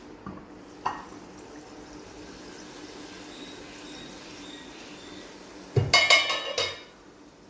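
Kitchen dishes and utensils clinking: a couple of light clicks, then a brief loud clatter of clinks and scraping about six seconds in, over a steady low hum.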